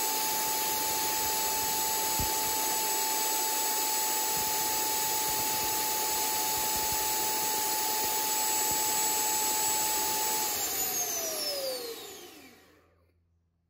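Jetfan 80mm V3 electric ducted fan, driven by a HET 700-83-1445 motor on 12S, running at full throttle with a steady loud rushing whine and a high tone, drawing about 130 amps. About ten and a half seconds in, the throttle is cut and it spools down, its pitch falling, until it dies away about two seconds later.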